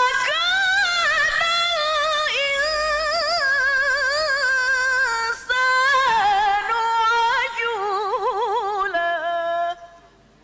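A single Qur'an reciter's voice in melodic tilawah style, drawing out long, high, ornamented notes with rapid wavering trills. The voice breaks off briefly about halfway through, then carries on and stops shortly before the end.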